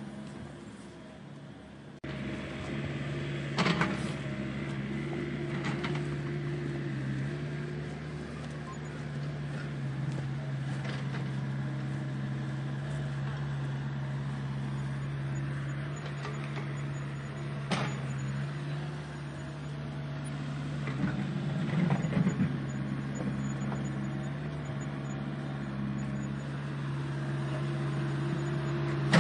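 Small electric motor of an RC construction model humming steadily, picking up about two seconds in, with a few sharp clanks of metal parts at work.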